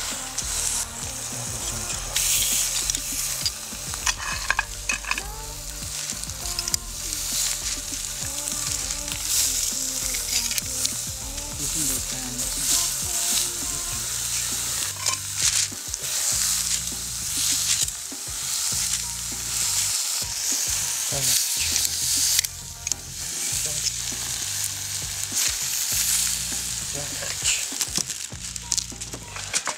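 Steady sizzling hiss with many scattered crackles and pops.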